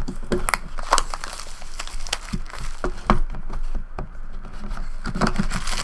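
Hands opening a sealed trading-card box: crinkling and scraping of the packaging, with a run of quick clicks and taps.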